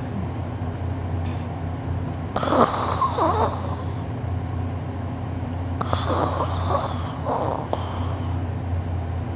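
A sleeping person snoring heavily: two long, rasping snores, one about two and a half seconds in and one about six seconds in, over a steady low hum.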